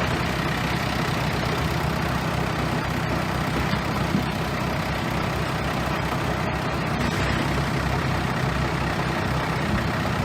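Bulldozer's diesel engine running steadily under load, with a deep, even engine drone.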